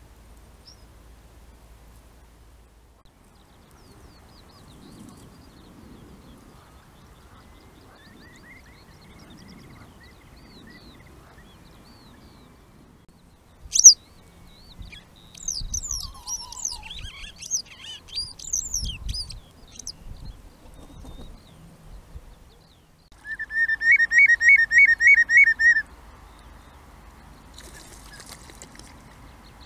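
Northern lapwings calling in flight, a sudden loud cry about halfway through, then a string of wheezy, rising-and-falling cries. Near the end another bird gives a rapid run of about nine loud, clear piping notes.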